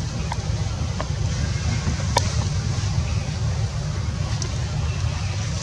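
Steady low rumble of background noise, with a few short, sharp clicks scattered through it.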